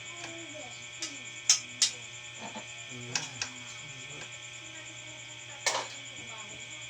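A steady hum with a handful of sharp knocks, the loudest about a second and a half in and near the end, over faint low voices.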